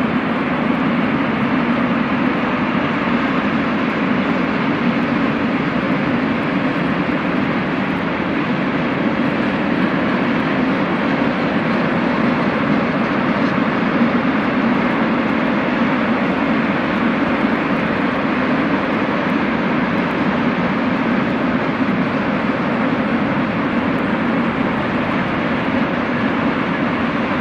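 Freight train of Eas and Eaos open wagons rolling past, a steady rumble of wheels on rails.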